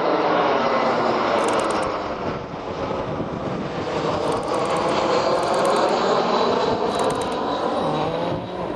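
Twin-engine jet airliner passing low overhead: loud, steady jet engine noise whose pitch bands sweep as the aircraft goes over.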